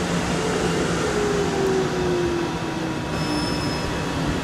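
South Western Railway electric multiple unit running past over the rails with a steady rumble, its motor whine sliding down in pitch. A brief high tone sounds about three seconds in.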